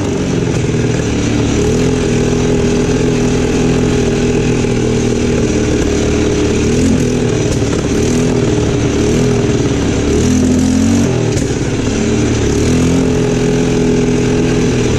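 ATV engine running under way on a dirt track, its note rising and falling slightly with the throttle.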